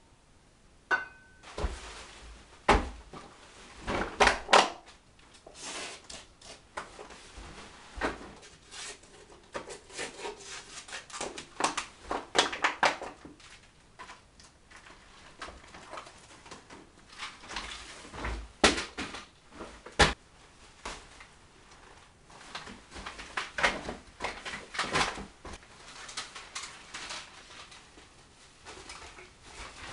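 Rummaging through rubbish: irregular rustling and crinkling of paper, cardboard and plastic, with scattered sharp knocks as things are picked up and set down.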